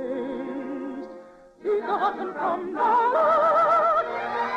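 An operatic soprano sings with wide vibrato over a studio orchestra. After a brief pause about a second and a half in, she ends the song on a held high note while the orchestra sustains a chord.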